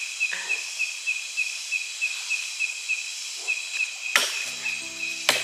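Night insects calling: a high chirp repeats about three times a second over a steady hiss of insect noise. Near the end come two sharp clicks, and low, steady background music starts in.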